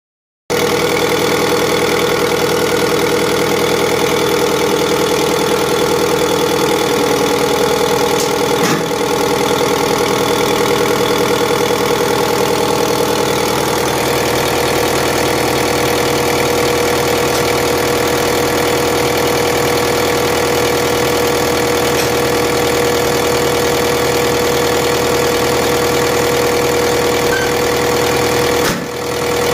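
Diesel injection pump test bench driving a four-cylinder 4JB1 inline injection pump: a steady mechanical run with a constant whine, as the pump delivers fuel into the bench's measuring glasses. The sound dips briefly twice, once about a third of the way in and once near the end.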